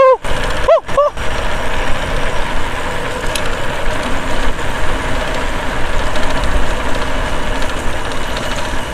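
Wind rushing over the microphone and tyre noise as a bicycle rolls along a paved road: a steady, uneven rush with heavy low rumble. A short voiced exclamation sounds just under a second in.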